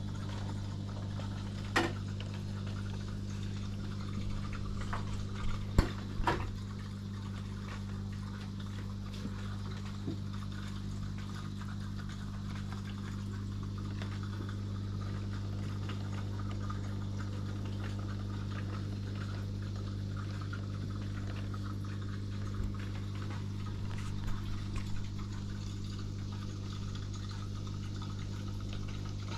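Aquarium pump humming steadily with water bubbling and trickling in the tank. A few sharp clicks sound about two and six seconds in and again near the end.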